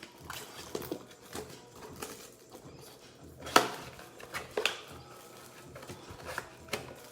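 Hands opening a Mosaic football blaster box and its card packs: scattered clicks and rustles, with a sharp snap about three and a half seconds in and another about a second later.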